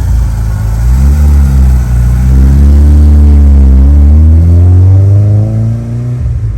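1992 Mitsubishi Eclipse GSX's turbocharged 4G63 inline-four engine revving, its pitch rising and falling several times.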